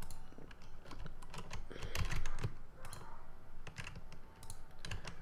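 Computer keyboard keys and mouse buttons clicking at irregular intervals as modifier keys are pressed and path points are clicked in.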